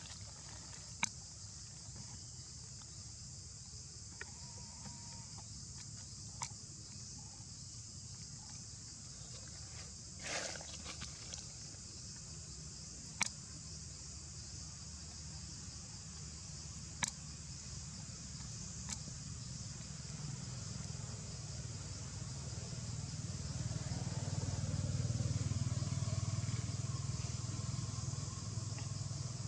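Steady high-pitched drone of insects, with a low rumble that swells about twenty seconds in and a few sharp clicks scattered through.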